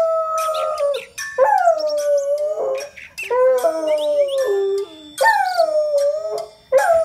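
A dog howling, about four long howls each rising quickly and then sliding slowly down in pitch, set off by the sound of an alarm clock.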